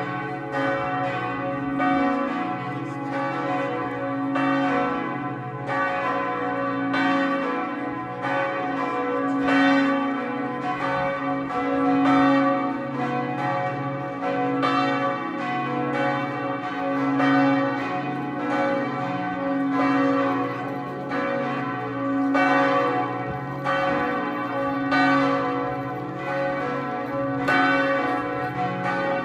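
Three swinging church bells (bells 2, 3 and 4 of the tower's peal) ringing together as a partial peal, their strikes overlapping in an uneven rhythm, with the loudness swelling and falling every few seconds.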